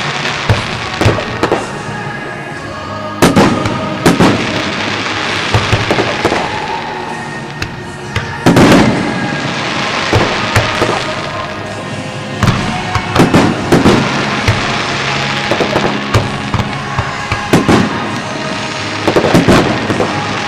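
Aerial fireworks shells bursting in a string of booms and crackles, a dozen or so sharp reports at irregular gaps of one to a few seconds, with music playing steadily underneath.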